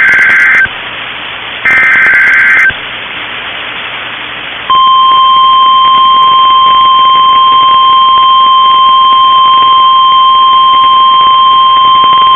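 NOAA Weather Radio EAS tornado-warning alert: two short warbling SAME digital header bursts, each about a second long, with radio hiss between them. About four and a half seconds in, the steady single-pitch 1050 Hz warning alarm tone starts and holds as one continuous loud beep.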